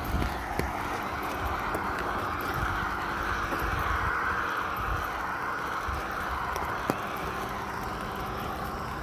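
Steady hiss of rain on wet pavement, with a car approaching on the wet road and a low rumble of wind and handling on the microphone.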